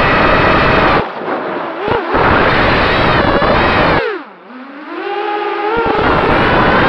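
FPV racing quadcopter's motors and propellers heard through its onboard camera: a loud whine with heavy propeller-wash noise, rising and falling with the throttle. About four seconds in the throttle is cut, so the whine drops sharply in pitch and level, then climbs back as the power returns.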